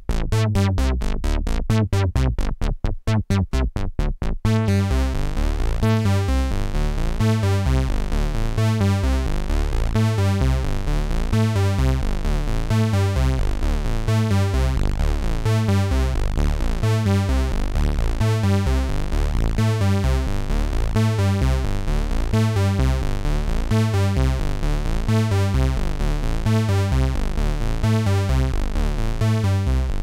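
Home-built Ad-vantage 03m analog synthesizer playing a fast, repeating bass-heavy pattern of notes. The notes are short and clipped at first, then about four seconds in they lengthen and run together, with a brighter, buzzier top, as the patch is changed.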